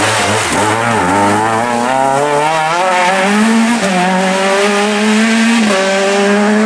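Renault Clio rally car's four-cylinder engine revving hard as the car accelerates out of a tight turn and pulls away. The pitch climbs and drops back at each quick upshift, several times over.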